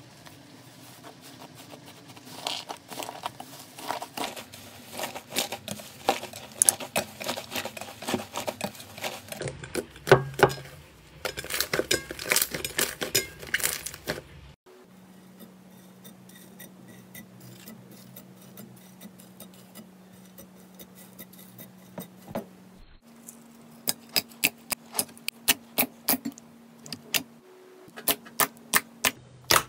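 Hands squishing and poking slime, making wet crackles and sticky clicking pops, dense at first as foamy slime is pressed. After a quieter stretch, sharp separate pops come about two a second as a finger pokes a clear glitter slime.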